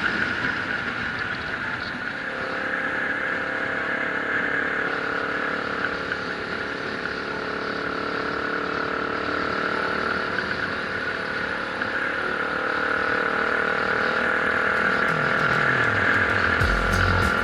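Dual-sport motorcycle engine running while riding, with steady rushing wind and road noise; the engine note drops near the end.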